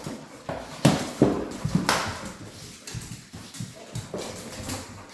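Dogs moving about on a hard floor: irregular tapping and clicking of claws, with a few sharper knocks, the loudest about a second and about two seconds in.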